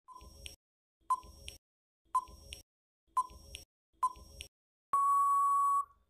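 Quiz countdown timer sound effect: five short beeps about a second apart, then one long steady beep near the end signalling that time is up.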